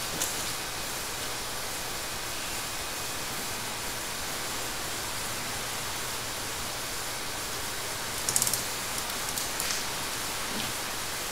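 Steady background hiss with no speech, broken about eight and a half seconds in by a brief cluster of small clicks.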